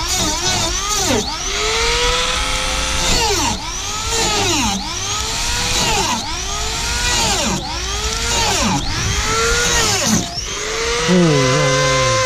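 Handheld rotary tool with a small cut-off disc cutting through a car's plastic front bumper. Its high whine drops and climbs back every second or so as the disc is pressed into the cut, turning uneven near the end.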